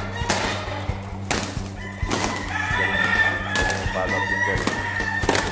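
Rooster crowing over background music with a steady beat.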